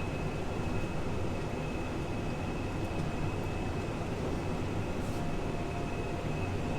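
Steady running of a Case IH tractor's diesel engine heard from inside the cab, with a thin, steady high-pitched whine over it.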